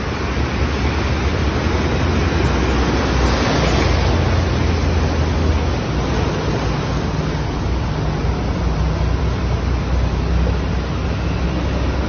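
Cars driving through deep, fast-flowing floodwater: a steady rush and wash of water over a low engine hum, swelling a little a few seconds in.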